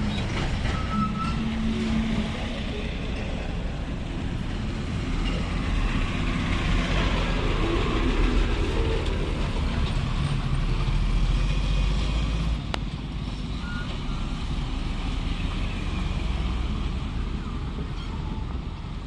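Heavy goods trucks' diesel engines and tyres going by on a rough road, a steady rumble that swells in the middle as one truck passes close and then eases off. A brief beep sounds about a second in.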